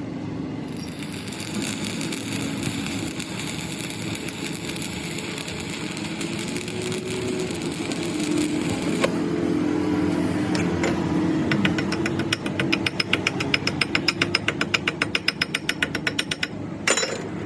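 A workshop machine running steadily with a hum, with a fast, even ticking of about six or seven strokes a second in the last few seconds.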